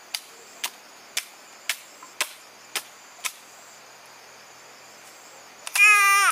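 Sharp, regular knocks about two a second, like chopping strokes, stopping about three seconds in; near the end a short, loud, wavering cry.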